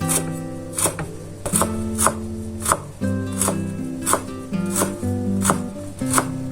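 Background acoustic guitar music with a steady beat, marked by sharp, evenly spaced strikes about every two-thirds of a second.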